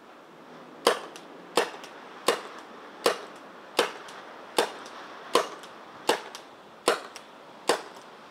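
Warsensor G1+ CO2 paintball pistol fired ten times in a steady rapid string, about one shot every three-quarters of a second, each sharp pop followed by a fainter tick.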